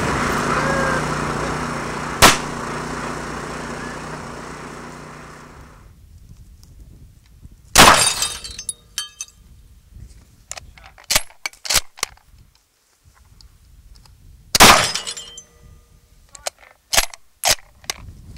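Two loud blasts with glass shattering, about seven seconds apart, each followed by scattered clinks and pops of falling debris. Before them a sharp crack about two seconds in, over a rushing noise that fades away.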